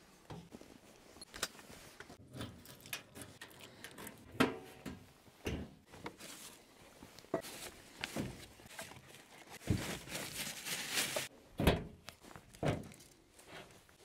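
Footsteps at a slow, uneven walk, roughly one step a second, with a longer rustling stretch a little past the middle.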